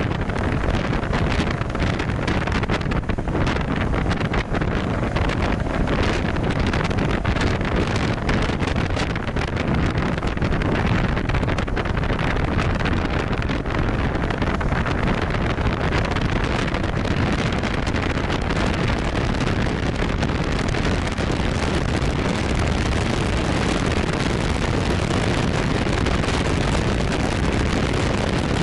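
Steady wind noise on the microphone of a camera riding on a moving BMW maxi-scooter, over the running engine and road noise of the scooter.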